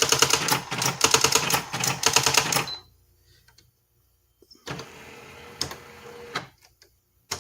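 Brother GX-6750 daisywheel electronic typewriter printing a rapid run of strikes, about ten a second, that stops after nearly three seconds. After a short pause a motor whirs for under two seconds, and a single click comes near the end.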